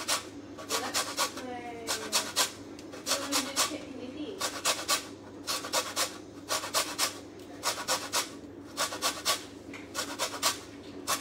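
A lemon being zested on a metal box grater: short bursts of quick rasping strokes, about one burst a second.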